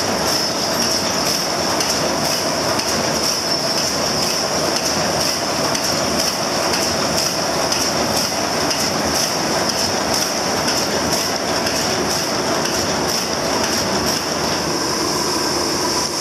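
Polygraph Brehmer 882 sheet-feeding machine running: a steady, rhythmic mechanical clatter of its grippers and feeders, with a constant high-pitched hiss over it.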